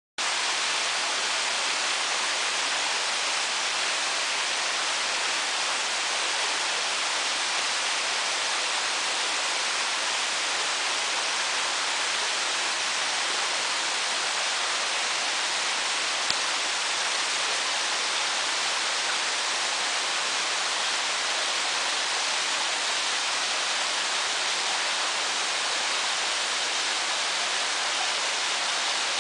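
Steady rush of running water from a rocky creek, starting suddenly just after the start, with a single brief click about halfway through.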